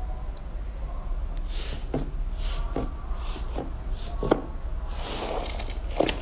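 Slime being squeezed and handled by hand, with soft swishes and scattered short wet pops and clicks.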